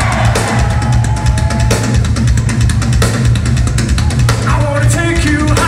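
Live rock drum kit being played hard, bass drum and snare hits driving a loud, continuous pattern with cymbals on top. A few sliding pitched tones rise and fall near the end.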